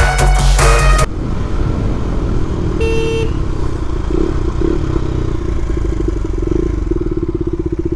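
Motorcycle engine running steadily, with a short horn toot about three seconds in. Electronic music plays for the first second before cutting off.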